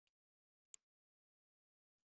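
Near silence broken by two faint, sharp clicks: a tiny one at the start and a crisper one about three-quarters of a second in.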